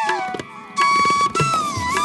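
Background music: a bamboo flute melody over tabla-like drum strokes, in a South Asian classical style. The music drops out briefly about half a second in.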